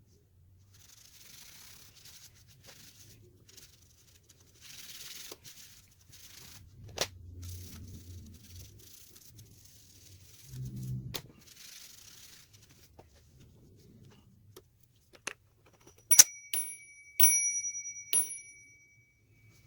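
Royal No. 5 manual typewriter being worked by hand: scratchy rubbing, scattered clicks and a low thud, then near the end a few sharp metallic strikes, two of them followed by a ringing bell tone, the machine's bell dinging.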